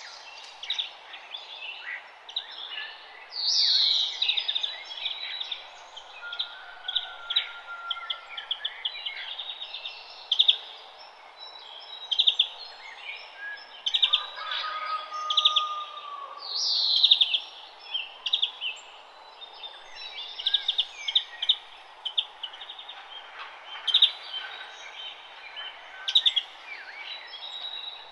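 Several birds chirping and singing in a quick string of short chirps and trills, with a louder falling call about three seconds in and again near the middle, over a steady background hiss.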